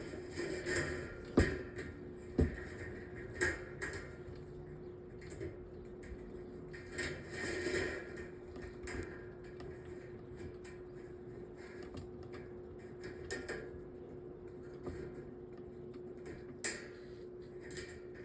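12-inch metal table fan's motor running with a steady hum, with a few sharp clicks and knocks over it, the loudest about a second and a half in and another near the end.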